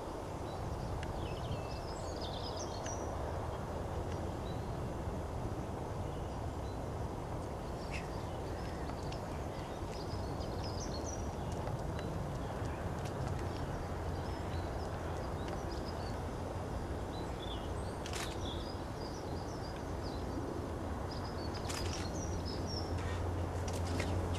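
Countryside ambience: a steady low rumble of background noise with small birds calling in short, scattered chirps. A few sharp clicks come near the end.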